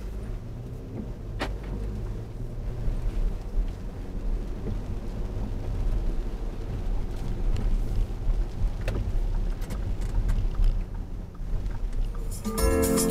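Car cabin driving noise on wet town streets, picked up by a dash cam's built-in microphone: a steady low engine and road rumble with a few sharp clicks. Music starts near the end.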